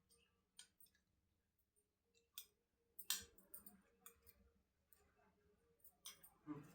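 Near silence with a few faint, scattered clicks, the loudest about three seconds in.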